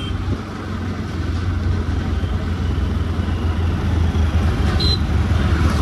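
Motorcycle engine running steadily while the bike is ridden in traffic, a continuous low drone with road noise, getting slightly louder after the first second. A brief high beep sounds near the end.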